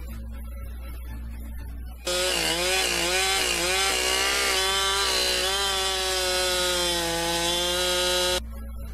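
A two-stroke chainsaw runs at high revs while carving into a wooden log. Its pitch wavers up and down as it bites into the wood. It starts suddenly about two seconds in and cuts off abruptly near the end.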